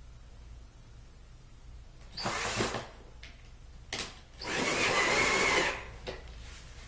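Power drill with a hex bit driving screws into the bed frame: a short burst about two seconds in, a click, then a longer run of about a second and a half with a steady whine.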